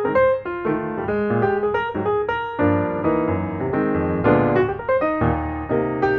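Background music: a fast-moving piano or electric piano piece, with many quick notes and chords.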